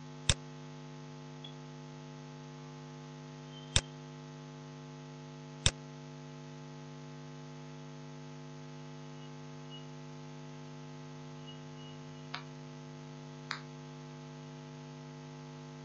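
A steady electrical hum runs underneath computer mouse clicks. There are three sharp clicks in the first six seconds and two fainter ones near the end.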